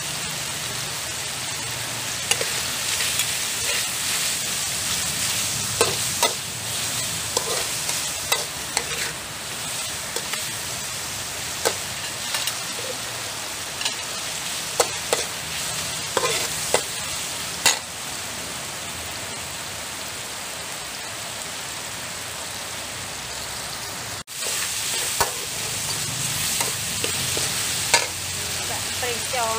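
Pork belly sizzling in a stainless steel wok while a metal spatula stirs it, scraping and clinking against the pan at irregular moments. The stirring clinks thin out for a few seconds past the middle, then resume.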